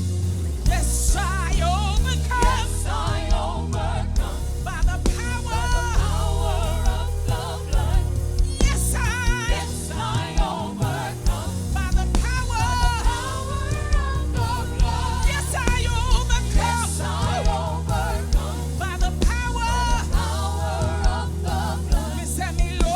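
Gospel band playing with a steady beat while singers sing with vibrato over it.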